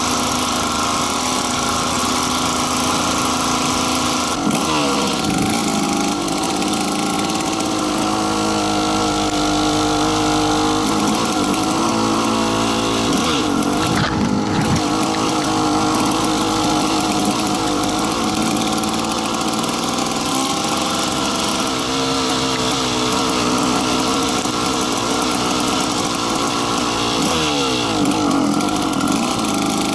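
Snowmobile engine running under way with a buzzing drone. Its pitch drops and climbs again a few times as the throttle is eased and opened: about four seconds in, around the middle, and near the end.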